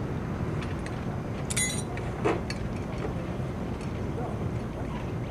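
Small petrol engine running steadily, with a brief high metallic ring about a second and a half in and a single knock just after two seconds.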